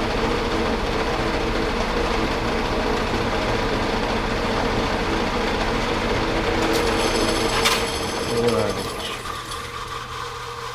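Metal lathe running while a center drill cuts into the end of a steel workpiece, with a steady hum and a rubbing cutting noise. About eight seconds in, the machine's pitch falls and the sound fades as the spindle winds down.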